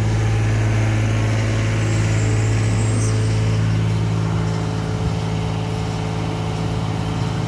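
City street traffic noise: motor vehicles running, with a steady low engine-like hum under the general rumble.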